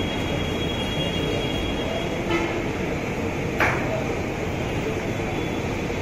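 Steady loud machine-like rushing noise, with a sharp knock about three and a half seconds in.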